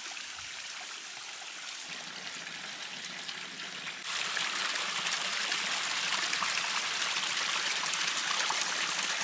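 Water running in a small mountain stream, a steady rushing and trickling that gets suddenly louder about four seconds in.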